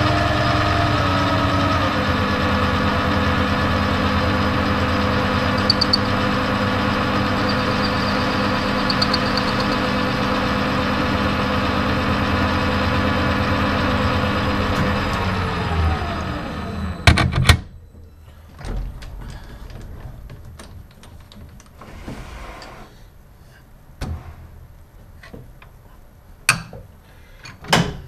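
Metal lathe running steadily with the hum and whine of its motor and gearing, then switched off about sixteen seconds in and spinning down with a falling pitch. Two sharp clunks follow, then scattered knocks and clicks of metal parts being handled.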